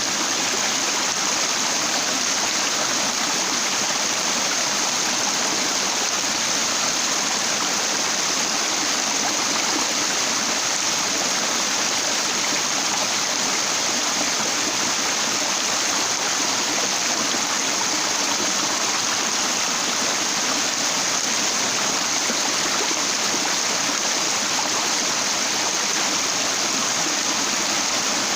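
Stream water flowing over and around a broad flat rock: a steady, even rush that does not change.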